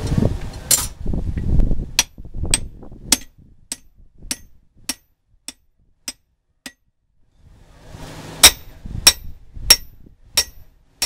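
A hand hammer strikes the head of a steel drift driven into the hot eye of an axe head on the anvil. The blows ring sharply, about one every 0.6 s. One run of strikes grows fainter, and after a short pause a second run of louder blows begins. The drift is opening and tapering the axe eye.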